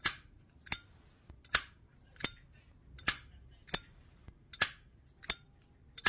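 Brushed-chrome Zippo 1937 Vintage replica lighter's lid clicking open and snapping shut again and again, about eight sharp metallic clicks with a short ring, roughly one every 0.7 seconds.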